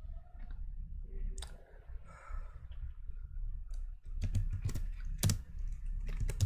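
A few scattered clicks, then a run of computer keyboard typing from about four seconds in.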